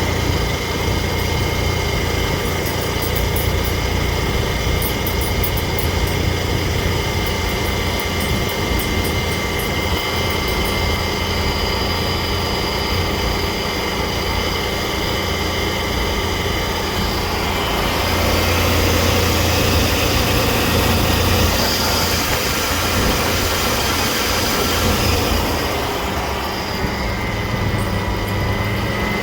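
Car engine running with the AC system on, a steady hum with several high whining tones over it; from about 18 to 25 seconds in it grows a little louder and rougher before settling back. The AC's low side reads too high on the gauges, which the owner puts down to a failing compressor.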